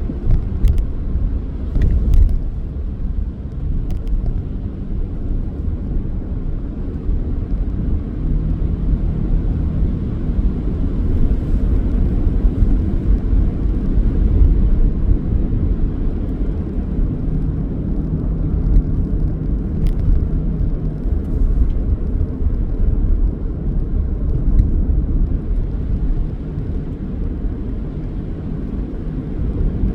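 Car being driven: a steady low rumble of road and engine noise, with a few faint clicks.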